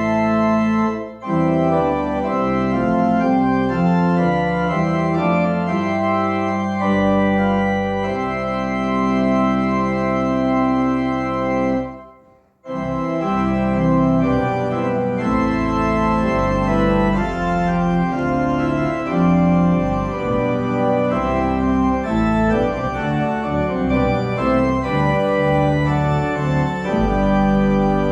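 Organ playing slow, sustained chords, with a short break about a second in and a half-second pause near the middle.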